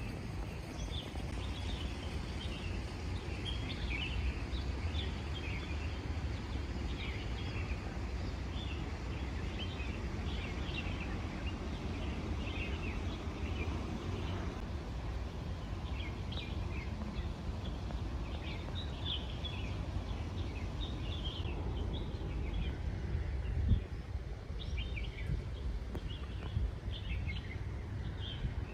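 Small birds chirping in short, scattered calls over a steady low outdoor rumble, with one brief thump about three-quarters of the way through.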